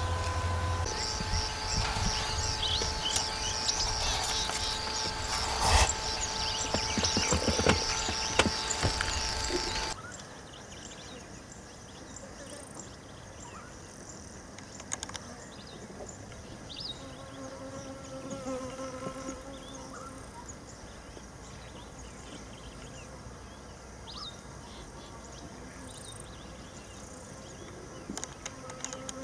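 Insects chirping in a high, pulsing chorus over a low steady hum. About ten seconds in, the sound drops suddenly to a much quieter outdoor ambience with only a few faint short chirps.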